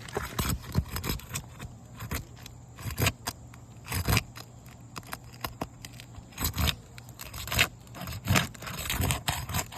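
A tool worked under asphalt roof shingles to break their seal: irregular scraping and crackling, with several louder rasping strokes, as the self-sealing strip lets go and pulls mat from the shingle below.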